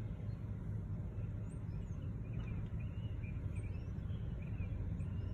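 Steady low rumble heard from inside a car, with faint, scattered bird chirps above it.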